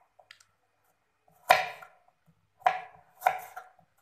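Kitchen knife slicing fresh turmeric root against a wooden chopping board: three sharp chops, the first about a second and a half in, then two more close together near the end.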